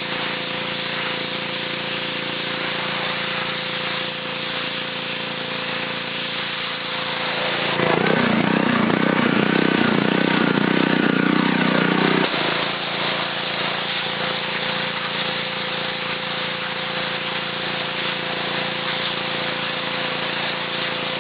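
Gas pressure washer with a Honda 5 hp single-cylinder engine running steadily, with the hiss of the water spray on concrete. The sound grows louder for about four seconds near the middle, then settles back.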